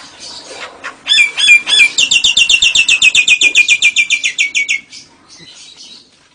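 A cage bird calling: three loud hooked notes, then a fast chattering run of about eight or nine repeated notes a second for nearly three seconds, sliding slightly lower in pitch before it stops.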